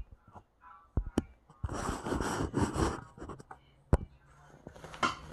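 A cloth rubbing hard against the wooden bass neck, burnishing the finish: a scratchy rubbing spell of about a second and a half in the middle, with a few sharp knocks and clicks of handling before and after it.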